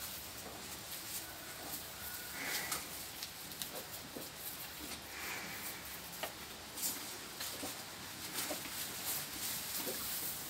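A young calf pulling at and chewing long green grass stalks in its trough: irregular rustling of the stalks with many small crisp crunches and clicks.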